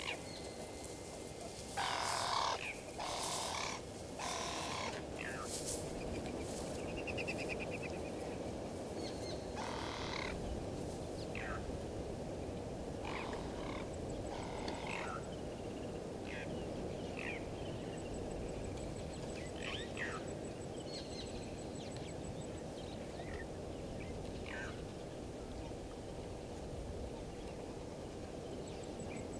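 Bushveld daytime ambience: scattered short bird calls over a steady low background hiss. A few loud harsh sounds about two to five seconds in are the loudest part, and a faint, high, rapid ticking comes and goes in the second half.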